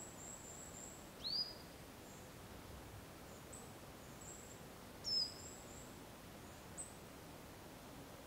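Small woodland birds calling: thin, very high short notes at intervals, with two louder whistled calls, one about a second in that sweeps sharply upward and one about five seconds in that falls in pitch, over a faint steady hiss of woodland air.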